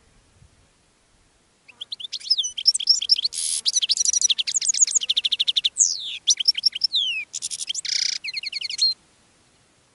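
European goldfinch singing a long, fast twittering song of tinkling, sliding notes with a couple of harsh buzzy notes mixed in. It starts about two seconds in and stops about a second before the end.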